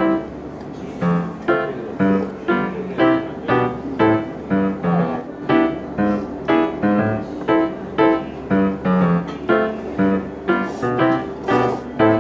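Background piano music, notes struck at an even pace of about two a second.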